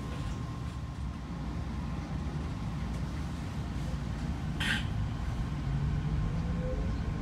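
Canada Line SkyTrain car running on elevated track, heard from inside the front car: a steady low rumble of wheels and running gear, a short hiss about four and a half seconds in, and a faint whine rising in pitch near the end.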